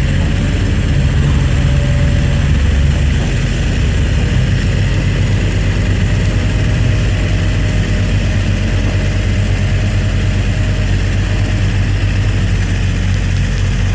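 Heavy diesel machinery engine running steadily at a constant low pitch, with no hammering or cracking heard.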